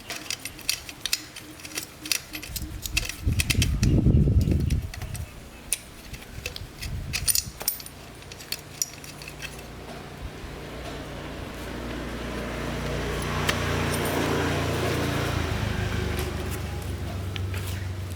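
Small metal parts clinking and rattling as they are handled, with a heavier thump about four seconds in. In the second half a steady low motor hum comes in, swells and then eases off.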